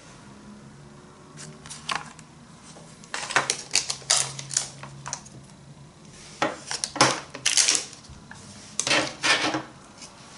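Hard objects being handled, rattling and clicking against each other in three bursts of clatter about three, six and a half and nine seconds in.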